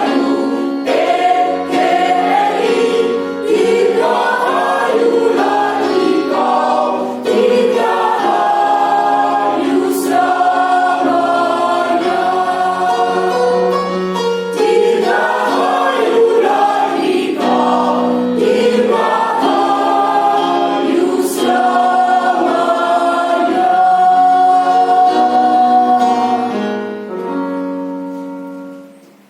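A choir singing a song in several parts. It ends on a long held chord that fades out over the last couple of seconds.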